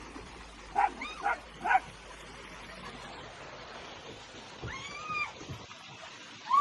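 A pet animal's short high calls: three quick yips close together about a second in, then one longer call about five seconds in that rises and falls in pitch.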